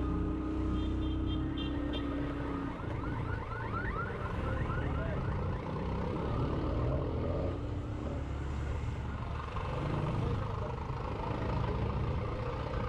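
Motorcycle engine running at low riding speed, a steady rumble throughout. A few short high beeps come in the first two seconds, and a quick series of short rising chirps about three to five seconds in.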